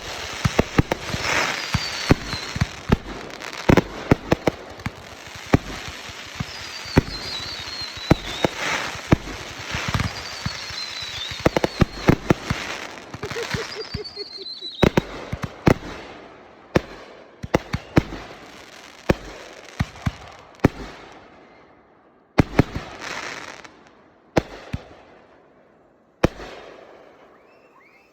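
Backyard consumer fireworks going off in quick succession: sharp bangs and crackling, with several short whistles that drop in pitch during the first half. The bangs then thin out to a few single reports, the last about two seconds before the end.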